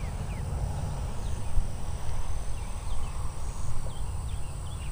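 Wind buffeting the microphone in uneven gusts, with birds chirping in short rising and falling notes that come more often near the end.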